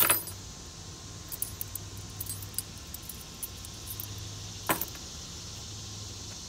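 A keyring of metal keys with a small ferro rod clatters down onto a wooden board, then the keys jingle in light, irregular little ticks as they are handled. A single sharp click comes about four and a half seconds in, over a faint steady low hum.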